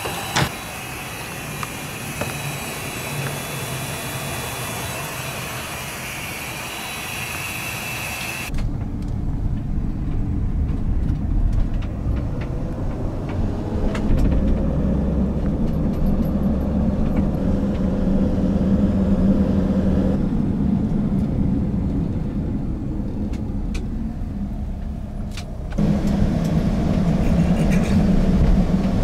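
Fuel hissing through a gas-pump nozzle into a jerry can. About eight seconds in it cuts to a van's engine and road noise heard from inside the moving cab, a steady low hum that grows louder near the end.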